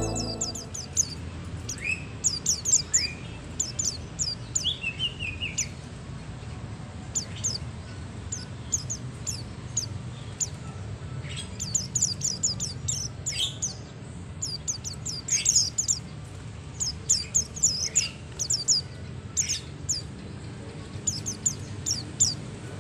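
A pair of white-eyes (pleci, Zosterops) calling: rapid clusters of very thin, high chirps with a few lower down-slurred notes, courtship calling from a pair about to mate.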